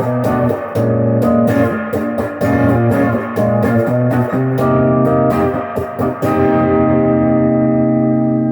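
Epiphone Les Paul Junior electric guitar, single bridge pickup, played through a Sweet Cream overdrive pedal into a Crate amp with the guitar's volume rolled back, giving a little distortion. Strummed chords and picked notes until about six seconds in, then one chord left to ring out.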